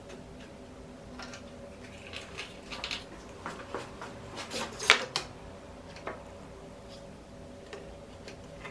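Scattered clicks and knocks from the spindle moulder's fence being shifted and set on its cast-iron table. One sharp click about halfway through is the loudest.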